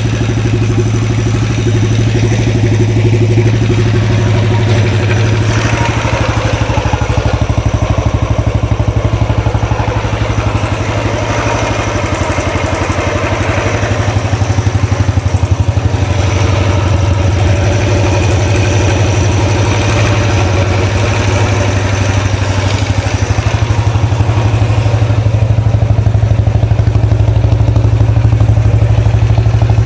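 A freshly rebuilt 2013 Royal Enfield Classic 500's single-cylinder pushrod engine idling steadily. A mechanical clatter runs over the exhaust beat. The owner calls it a bit noisy and wonders whether it comes from the rockers, the pushrods or something else.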